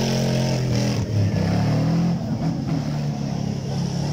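Off-road 4x4 race vehicle's engine running hard through mud, its note shifting about a second in and easing off after about two seconds.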